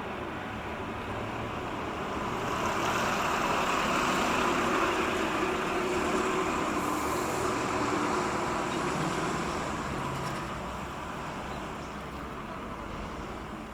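A motor vessel passing by, its engine and wash swelling about two seconds in and fading away toward the end.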